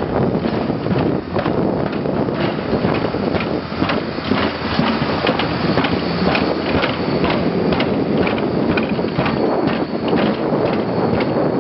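Impact roller towed by a John Deere tractor, its non-round drum pounding the concrete runway slab to break it up: a fast, uneven run of heavy thumps, a few a second, over the tractor's engine running.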